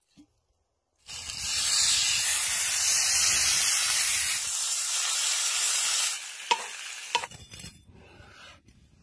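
Two seasoned steaks searing in a hot cast-iron skillet: a loud, steady sizzle that starts about a second in and dies down after about five seconds. Two sharp clicks follow.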